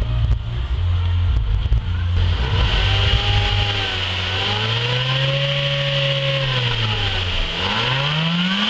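Honda Civic engine with a low rumble, then revved up slowly, held a couple of seconds and let back down, then revved up and down again near the end.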